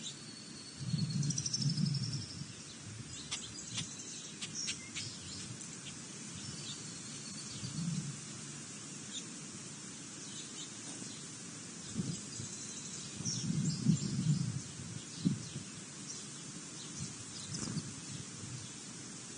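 Small birds chirping outdoors with short, high calls, clustered in the first few seconds. Brief low rumbles come and go, the loudest about a second in and again about two-thirds of the way through.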